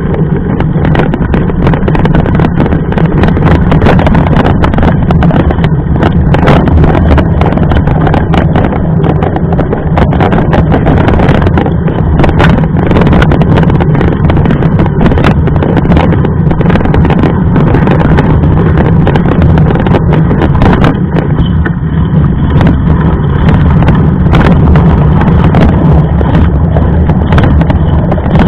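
Loud, steady rumble with scattered knocks and rattles from a camera carried on a moving mountain bike, the noise of riding.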